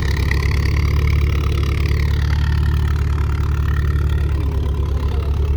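Car engine idling steadily, an even low drone.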